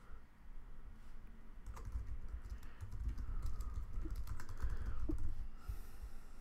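Typing on a computer keyboard: a quick run of key clicks starts about two seconds in and stops shortly before the end, as a short phrase is typed.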